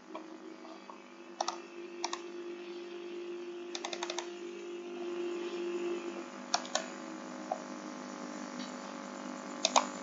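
Computer keyboard keys clicking in scattered, irregular strokes, with a quick run of keystrokes about four seconds in, over a steady low hum.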